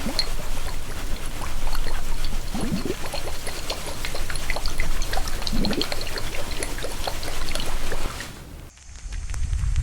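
Close-miked ASMR trigger sounds: many small crackles and clicks, with a few short low gliding sounds. About nine seconds in, the sound cuts abruptly to a different, quieter crackle.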